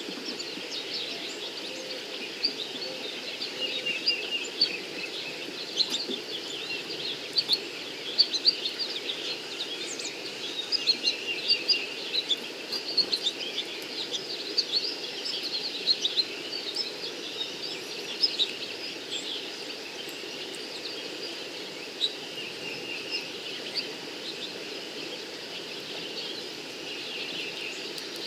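Many small birds chirping and calling in quick short notes, with a brief trill now and then, over a steady low background noise.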